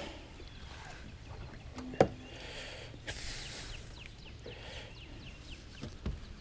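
Quiet handling sounds from unhooking a bass in a kayak: one sharp click about two seconds in, then a short rush of noise, with faint high chirps.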